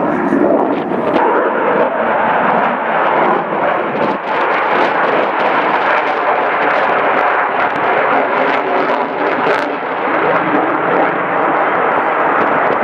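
Fighter jet flying overhead in an air display: a loud, steady roar with crackle running throughout.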